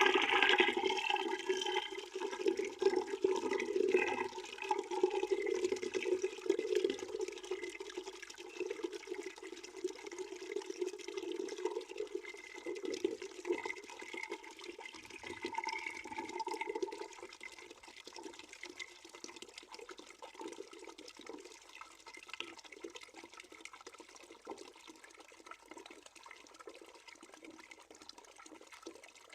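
Water running and splashing into a bucket that is nearly full. The flow weakens, and about two-thirds of the way through it falls to a faint trickle.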